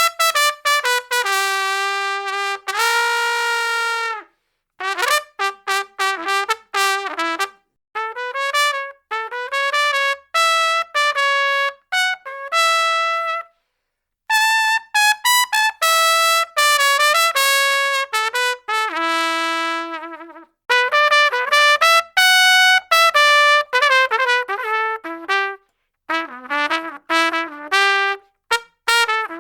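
Solo brass horn playing a string of short melodic phrases: quick runs of notes with a few longer held notes, separated by brief pauses.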